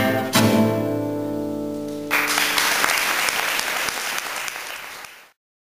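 Two classical guitars strike a closing chord that rings for about two seconds, then the audience breaks into applause, which cuts off suddenly near the end.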